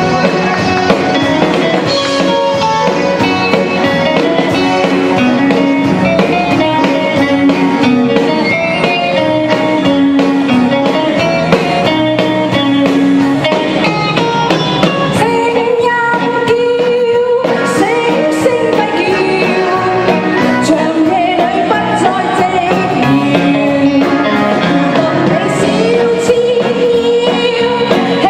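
A singer performing a pop song over loud amplified backing music.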